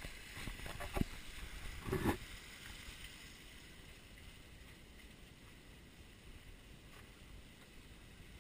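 A knock about a second in and a short voice sound near two seconds, then a faint steady rushing noise.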